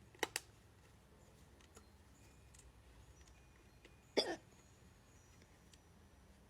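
A person hiccuping: two quick hiccups just after the start, then a louder single hiccup about four seconds in.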